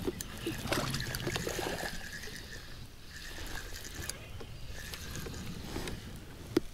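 Spinning reel being cranked to bring in a hooked bass, with small clicks from the reel and water trickling and lapping around the kayak; a couple of sharper clicks near the end.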